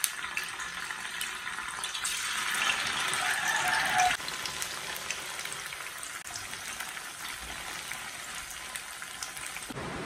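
Tofu cubes frying in hot oil in a stainless steel pan, a steady sizzle. It grows louder about two seconds in, then drops off suddenly at about four seconds.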